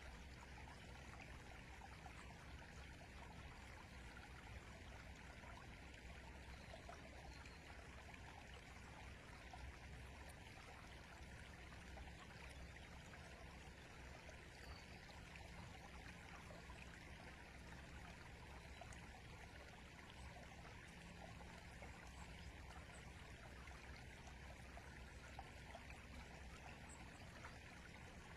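River flowing: a faint, steady rush of running water.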